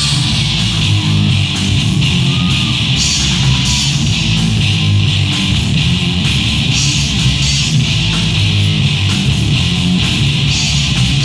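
Three-piece rock band playing live and loud: electric guitar strumming chords over bass guitar and drums.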